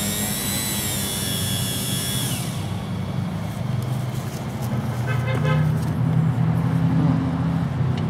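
Washing machine drive motor running with a high whine that dips slightly in pitch and then cuts off about two and a half seconds in. A low steady hum carries on, growing a little louder toward the end.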